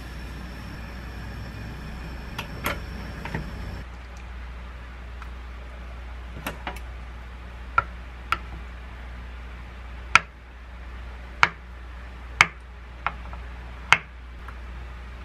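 Kitchen knife slicing a block of warm tofu, each cut ending in a sharp tap of the blade on a wooden chopping board: about eight taps, roughly a second apart. Before them, a steady hiss from the gas stove under a pot of hot water, with a couple of clinks, which cuts off about four seconds in.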